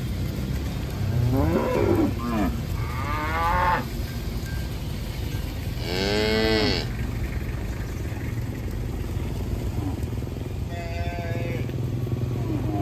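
Cows mooing: several separate calls, the loudest about six seconds in rising and then falling in pitch, over a steady low rumble.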